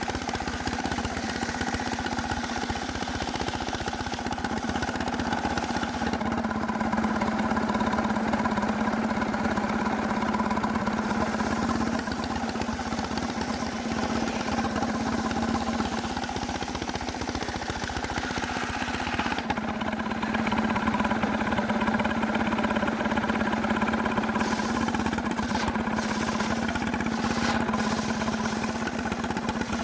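Sawmill engine running steadily at high speed while cutting hard cemara wood, its tone changing slightly a few times.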